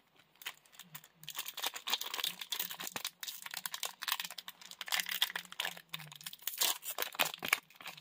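Foil wrapper of a Pokémon Trick or Trade booster pack crinkling as it is handled, in quick irregular crackles starting about a second in.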